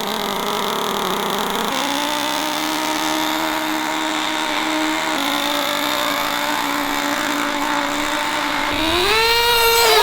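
Nitro RC car's small glow-fuel engine running at a steady high pitch, then revving higher near the end.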